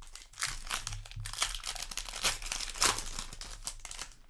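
Crinkling and rustling of a Magic: The Gathering play booster pack's foil wrapper as it is handled and torn open.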